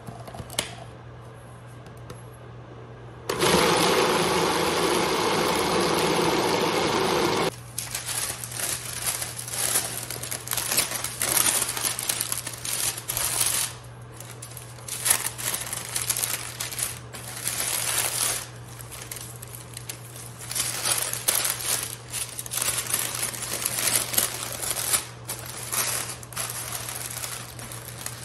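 Food processor runs for about four seconds, blending diced meat into doner kebab paste, then cuts off suddenly. After that, parchment paper crinkles and rustles in irregular bursts as it is handled on a baking tray.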